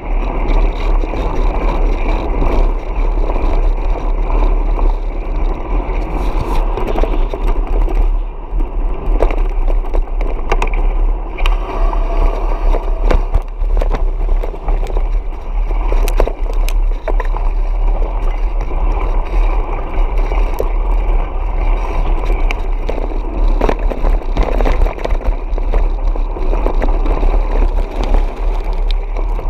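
Off-road motorcycle riding on a dirt track, engine and wind noise on the bike-mounted camera with a strong low rumble, while the knobby tyres rattle over gravel and splash through shallow water.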